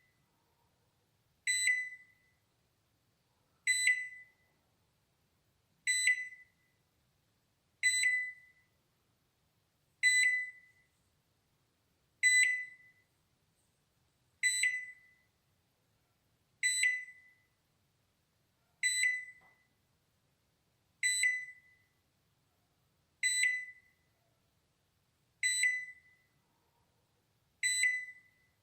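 Balay microwave oven's alarm beeping repeatedly: single high-pitched beeps about every two seconds, each fading out quickly, the end-of-cycle signal that the heating is done.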